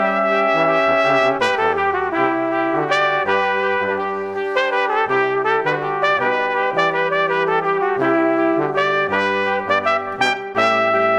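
Background music played by a brass quartet of trumpets and trombones: a melody of held notes moving over sustained low notes.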